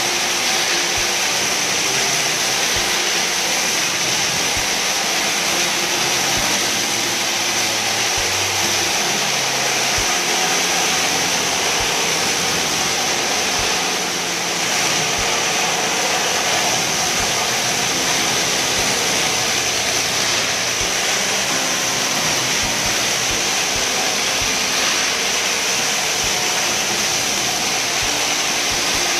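Rotary spray-and-vacuum hard-surface cleaning tool and its extraction machine running: a loud, steady hiss and whine as the spinning head is worked over Victorian encaustic tiles, stripping residue of an impregnating sealer.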